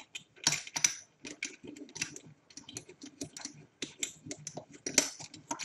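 Altitude adjustment screws of a Celestron CG-4 equatorial mount being wound out by hand: a run of light, irregular clicks and ticks, several a second.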